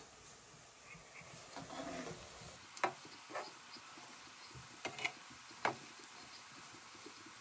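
Cabbage bhajia batter deep-frying in hot oil in an aluminium kadai, a steady sizzle. In the second half a metal spoon knocks against the pan five times as the fritters are stirred.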